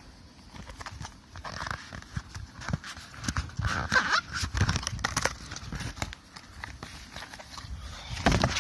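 Packaging being handled while items are taken out of a box: irregular knocks, taps and rustling scrapes of cardboard and paper.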